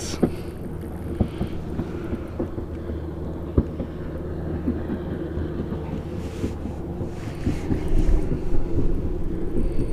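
A boat motor running steadily with a low hum, with wind on the microphone and a few light clicks.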